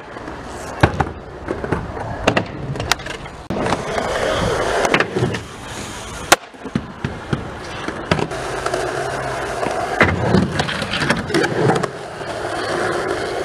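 Skateboard wheels rolling on concrete, broken by sharp clacks of the board popping off the ground and landing tricks. The loudest clack comes about six seconds in.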